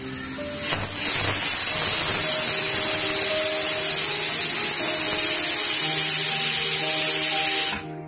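Stovetop pressure cooker whistling: about a second in, the weighted whistle lifts and steam rushes out of the vent in a loud, steady hiss, which stops suddenly near the end as the pressure drops.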